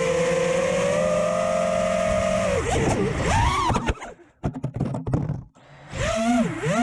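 FPV racing quadcopter's motors whining, their pitch gliding up and down with throttle. About four seconds in the whine drops away into choppy clicks for a second or two, then spools back up.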